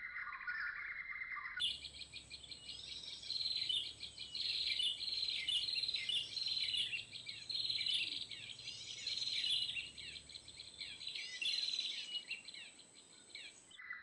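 Rapid, overlapping chirps and trills of small songbirds, the 'noisy bird' lure call used to draw prenjak (prinias and tailorbirds) to lime sticks. About a second and a half in, the calls jump higher and busier, then drop back abruptly just before the end.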